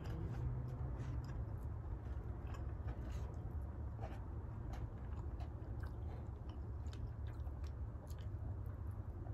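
A person chewing and biting food, with many small crisp clicks and smacks scattered throughout over a steady low hum.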